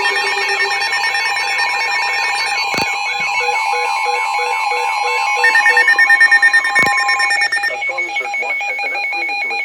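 Emergency Alert System storm surge warning: a steady alert tone with a warbling alarm pattern over it, cutting off about seven and a half seconds in. A synthesized voice then begins reading the warning.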